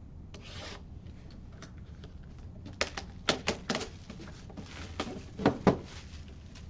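Handling noises of a trading-card box and its packaging on a table: a short rustle, then a run of light clicks and knocks, with two stronger knocks near the end.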